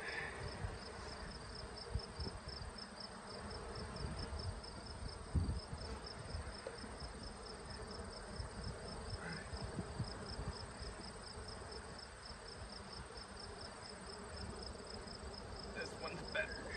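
Honey bees buzzing steadily around an open hive while a frame is lifted out. A high chirp pulses evenly a few times a second throughout, and there are a few soft low knocks from the frames being handled.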